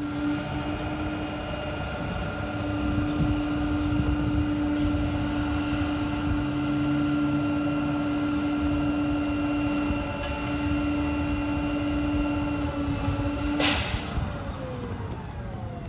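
Garbage truck working in the alley: a steady mechanical whine from its engine and hydraulics, then a short burst of air hiss near the end, after which the pitch falls away as the truck winds down.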